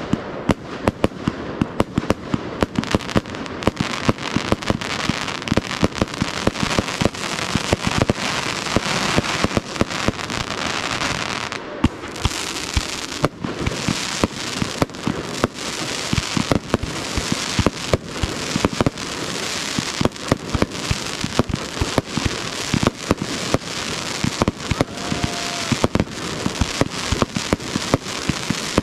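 Fireworks display: a dense, rapid run of bangs over continuous crackling from the bursting shells.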